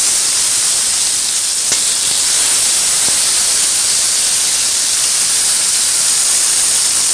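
Chicken pieces frying in hot oil in a skillet, a loud, steady sizzle.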